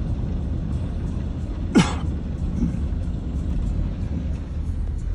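Steady low rumble of a car driving on a flooded road, with one short, sharp, louder sound about two seconds in.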